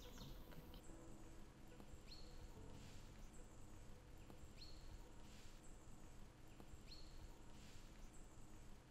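Near silence: faint outdoor ambience, with a single bird's short high chirp repeating regularly about every two and a half seconds.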